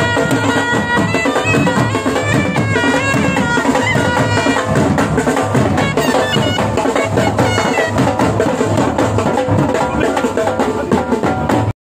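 A Fauji-style pipe band playing: a bagpipe melody steps up and down over a steady beat of snare and bass drums.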